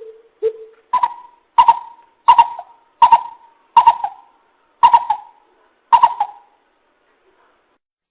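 Coucal calling: a series of about ten short call notes, the first three lower in pitch and the rest higher, evenly spaced about two-thirds of a second apart, stopping about six seconds in.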